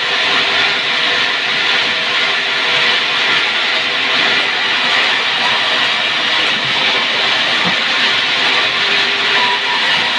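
A woodworking power tool running steadily on pine board, a constant loud hissing machine noise with a faint underlying hum.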